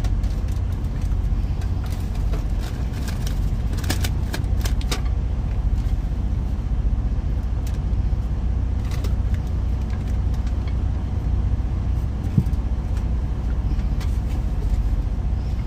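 Steady low rumble of a semi truck's idling diesel engine heard inside the cab, with plastic packaging crinkling and small clicks in bursts and one sharp knock about twelve seconds in.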